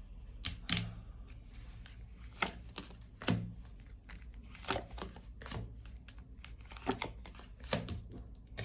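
Tarot deck being handled and shuffled by hand: a string of short, sharp card flicks and rustles, irregularly spaced, about one or two a second.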